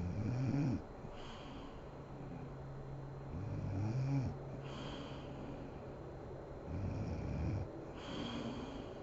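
A sleeping woman snoring: three loud, low snores about three and a half seconds apart, each followed by a softer hissing breath.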